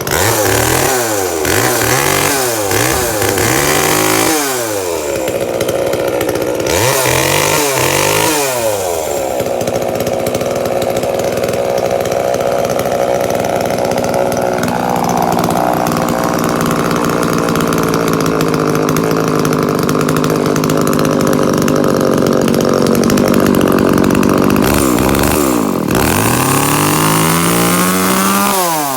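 Echo CS-3400 two-stroke chainsaw running just after a start, its throttle blipped up and down several times in the first few seconds and again a few seconds later. It is then held at high revs for a long stretch, with one quick dip and recovery, before the revs drop away at the end.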